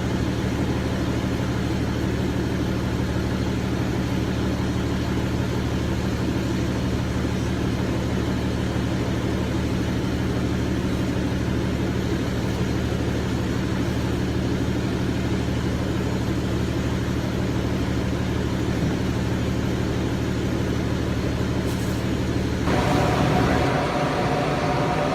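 A vehicle's engine running with a steady low hum. Near the end it grows louder and a higher steady tone comes in.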